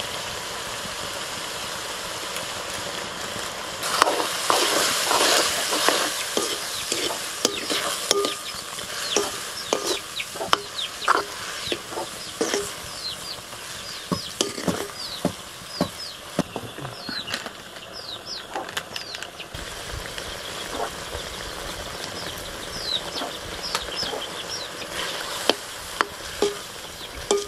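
Mushroom curry sizzling and bubbling in a wok, with a steel ladle stirring and knocking against the pan in a string of short clicks and knocks; the stirring grows louder about four seconds in. Short, high, falling bird chirps repeat through much of it.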